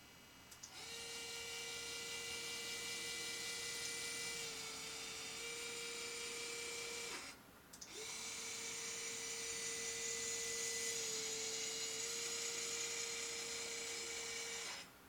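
PT1010RS pan-tilt head's 12 V motor drive whining steadily as the head pans and tilts. It runs in two stretches of about six and seven seconds with a short stop between, and the pitch dips slightly partway through each run.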